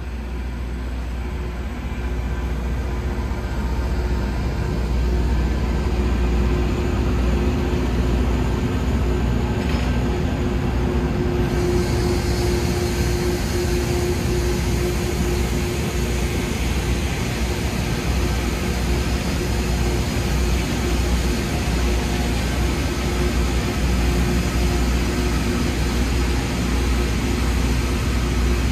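Loram rail grinding train working the track: a steady low diesel rumble under a dense, rasping grinding hiss and a steady hum. It grows louder over the first few seconds, and the hiss grows stronger about a third of the way through.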